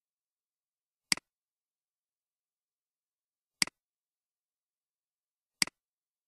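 Three computer mouse clicks, each a quick pair of ticks, spaced about two seconds apart in otherwise dead silence.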